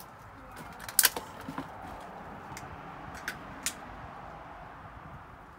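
Footsteps crunching over debris and twigs: a handful of sharp cracks and clicks, the loudest about a second in.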